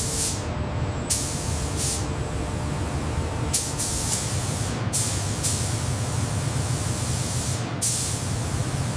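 Factory assembly-line ambience: a steady low machinery hum with a series of short hisses, like compressed-air releases, about six in all.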